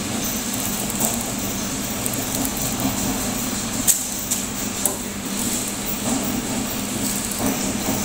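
Steady running noise of workshop packaging machinery, with a few sharp clicks and knocks.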